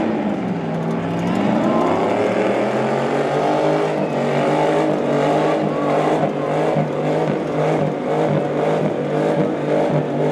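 Pickup truck engine running hard under load while pulling a weight-transfer sled. The engine note dips briefly about a second in, then climbs and holds steady at high revs.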